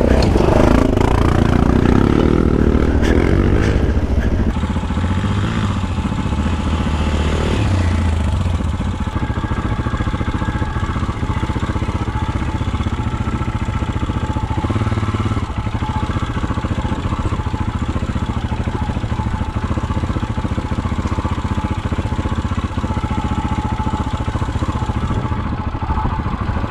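Kawasaki KLE 500 parallel-twin dual-sport motorcycle engine running under way on a dirt track. It is louder and rougher with some clatter over the first four seconds, then runs steadily at an even engine note.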